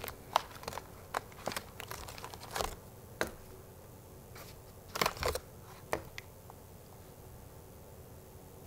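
Clear plastic case of a Gundam Marker pour-type set being opened and handled: scattered clicks and crinkles of stiff plastic, with markers set down on a hard table. Most of the handling falls in the first six seconds.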